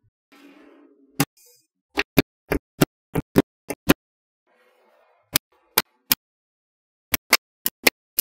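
Small magnetic balls clicking sharply together as they are set in place, about seventeen clicks in irregular quick runs, with faint soft handling noise between the runs.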